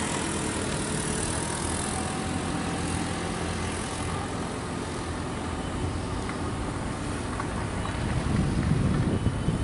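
Mitsubishi Colt L300 pickup's engine pulling steadily up a steep grade. Its hum grows louder near the end as it draws close.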